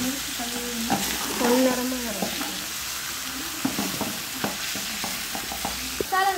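Metal spatula stirring and scraping chicken pieces around a large metal pan while the masala sizzles as it fries. The spatula clicks against the pan several times. The cook is mixing the masala into the chicken.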